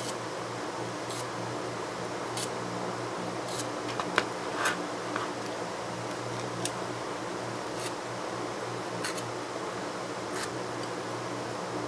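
Steady low hum with background hiss, and faint short clicks about every second. There are a couple of slightly louder taps about four seconds in as the coil's thin wire leads are handled.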